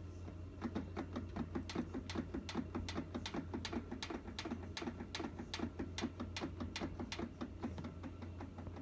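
Samsung washing machine making a rapid, even clicking, about three sharp clicks a second, over a steady low hum. This is the odd noise the owner is showing.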